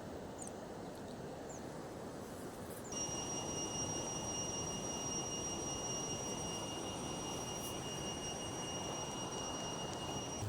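Steady rushing noise of flowing river water. About three seconds in it gets a little louder and a thin, steady high whine joins it.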